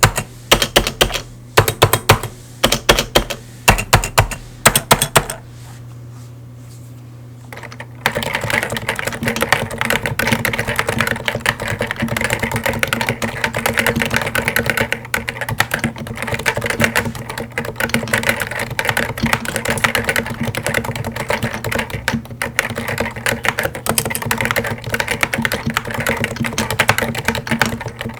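Topre Realforce Hi-pro keyboard with stock 45 g Topre electrostatic capacitive switches. For about the first five seconds the large stabilized keys are pressed in short runs of strokes. After a brief pause, fast continuous paragraph typing begins, about eight seconds in.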